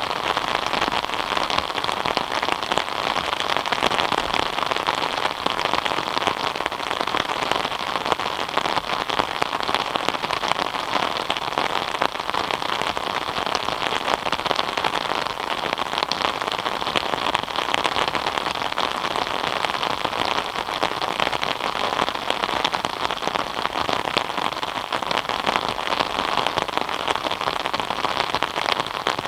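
Steady rain falling, a dense, even patter of raindrops on surfaces.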